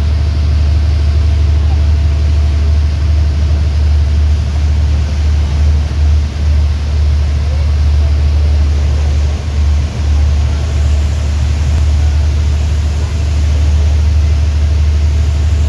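Boat engine running steadily under way on the river: a loud, continuous low drone.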